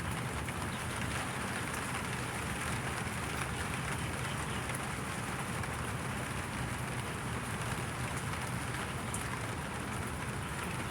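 Steady rain falling, an even continuous hiss with a few faint scattered ticks of drops.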